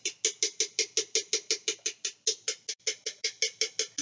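Metal spoon scraping blended nut milk quickly back and forth against a fine-mesh metal strainer, pressing it through: an even rhythm of short metallic scrapes, about six a second, with a brief break about three seconds in.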